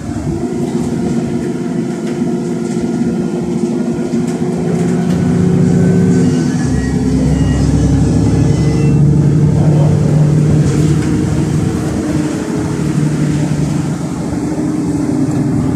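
NefAZ 5299 city bus running along the road, its engine and drivetrain heard from inside the passenger cabin. The engine note drops lower and grows louder about six seconds in.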